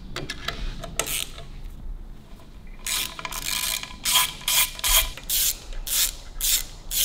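Hand ratchet wrench worked through the holes of a motorcycle clutch drum onto a gearbox bolt, clicking in short repeated strokes about two a second from about three seconds in, after a few light tool clicks.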